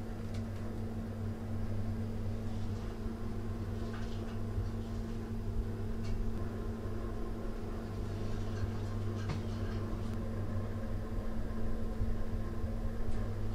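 A steady low hum over a faint hiss, with a few faint ticks here and there.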